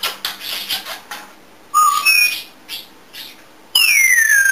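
African grey parrot vocalising: rasping, scratchy noises, then a short two-note whistle. Near the end comes a loud, long, clear whistle that glides down in pitch and then holds steady.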